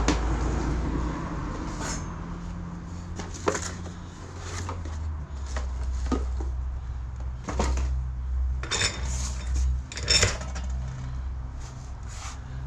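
Irregular clicks, knocks and rattles of computer parts and a PC case being handled and fitted together, over a steady low rumble.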